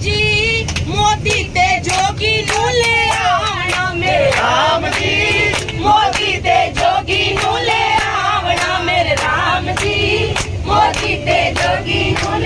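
A group of men and women singing a devotional bhajan to Ram together, with a steady beat of sharp strokes, over a low rumble.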